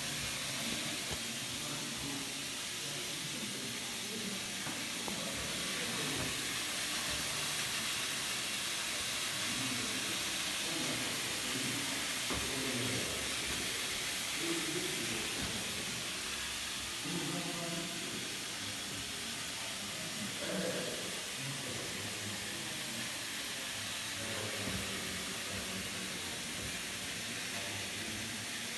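Steady hiss of steam from a bakery steam machine, running without a break at an even level.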